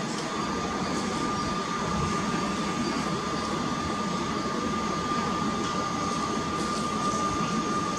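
Steady running noise of a train with a constant high-pitched whine throughout.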